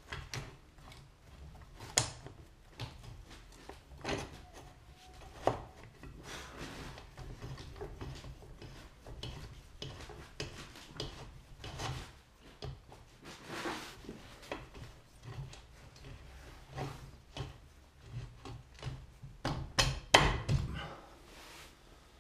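Scattered clicks, knocks and rubbing of hands working metal parts at a pit bike's rear axle and brake caliper, with a short run of louder knocks near the end.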